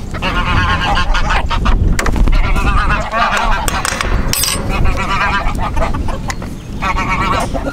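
Geese honking over and over, several calls overlapping, over a low rumble. A metal gate latch clinks about four seconds in.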